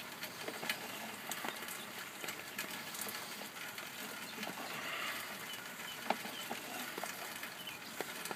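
Light rain pattering, with irregular drops ticking over a steady hiss.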